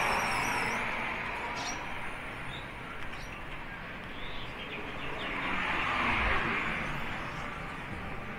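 Street traffic: the sound of passing vehicles fades over the first few seconds, and another vehicle passes about six seconds in. A warbling bird call ends within the first second, and small birds chirp faintly in the middle.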